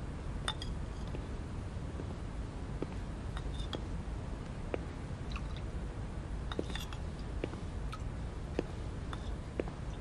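Porcelain spoon clinking lightly against a china bowl, with scattered small clinks over a low steady hum.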